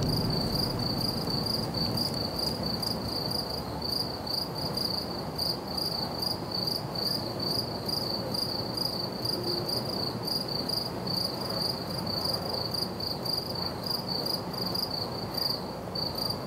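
Crickets chirping in an even rhythm, about three chirps a second, over a steady rushing night-forest ambience in a film's temp sound mix. The ambience cuts off abruptly at the end.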